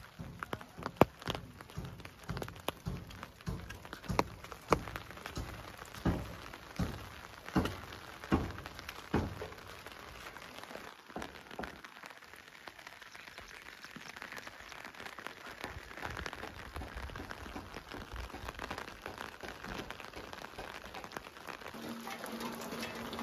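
Steady rain falling, with a series of sharp knocks roughly once a second through the first ten seconds. A steady low hum comes in near the end.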